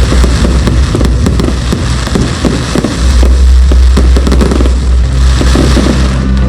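Aerial fireworks going off in quick succession: a dense run of bangs and crackles over a continuous low rumble.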